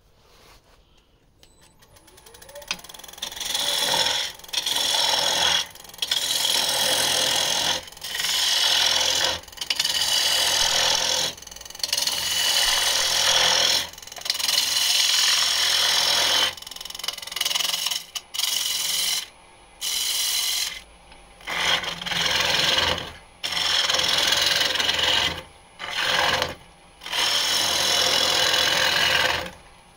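Bowl gouge cutting into a wooden bowl turning on an electric lathe, hollowing out the inside: a loud rasping hiss of shavings being peeled off. It comes in repeated passes of a second or two with short pauses between cuts, starting a couple of seconds in.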